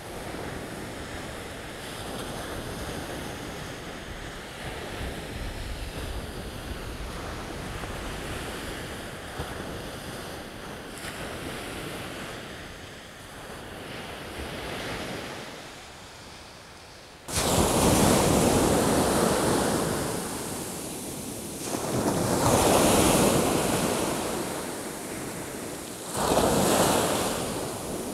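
Small waves breaking and washing up onto a sandy beach, a steady wash of surf at first. About two-thirds of the way through it suddenly gets louder and closer, with three surges of breaking surf a few seconds apart.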